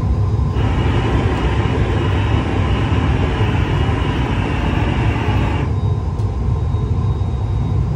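Steady low rumble of a glassblowing studio's gas-fired glory hole and furnace burners. A hiss is added from about half a second in and cuts off abruptly near six seconds.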